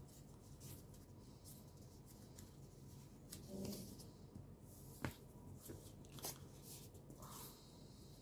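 Faint rustling of collage paper pieces being handled and pressed flat by hand on a notebook cover, with a few light ticks, the sharpest about five seconds in and just after six seconds.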